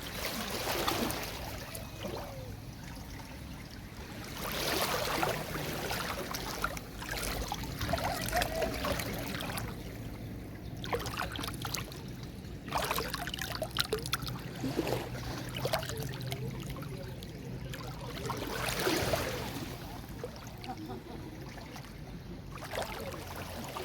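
Sea waves breaking and washing up a beach, the surf swelling and fading every few seconds.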